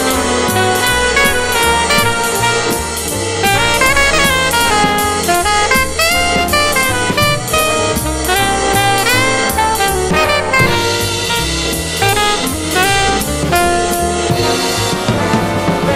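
Jazz drum kit played live along with a recorded jazz combo backing track: a horn, saxophone-like, carries a melodic line of held and sliding notes over a stepping bass part, while the drums and cymbals keep time.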